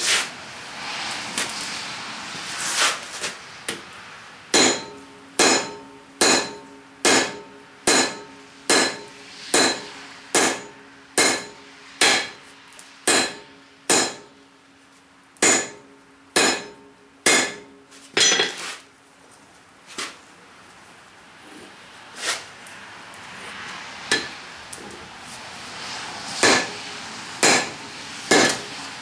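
Blacksmith's hand hammer striking a hot steel workpiece on an anvil, a steady run of blows about one and a half a second, each followed by a ringing tone. After a pause come a few scattered blows, then another quick run of strikes near the end.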